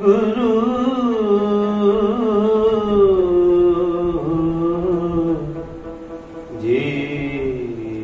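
Slow, unmetered opening of a Sikh kirtan on bowed sarangi, with long held notes that glide and waver and no tabla beat. A second, lower line joins about two-thirds of the way in.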